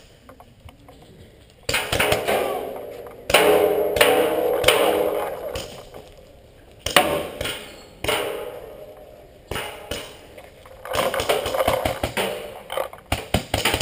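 Paintball fire in quick strings of shots, with paintballs smacking into empty steel-drum bunkers that ring with a metallic ping after the hits. The volleys come in several clusters.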